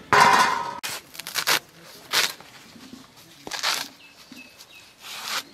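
Cleaver chopping a bunch of water spinach (kalmi shak) on a wooden block: a handful of irregular chopping strokes about a second apart, with a louder noisy burst right at the start.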